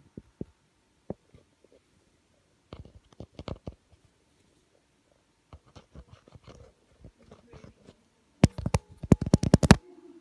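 Fingers scratching and tapping on a Røde microphone and on the body of the iPhone it is plugged into, as a test for handling noise: scattered soft scrapes and clicks, then a burst of rapid, louder taps near the end.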